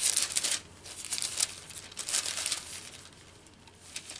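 Thin Bible pages being leafed through, a papery rustling and crinkling in quick irregular strokes, busiest over the first two and a half seconds, then thinning out.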